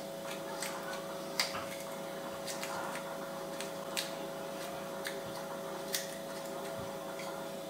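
Nessmuk knife whittling a willow spoon blank: irregular crisp clicks and short scrapes as the blade shaves off wood, over a steady hum.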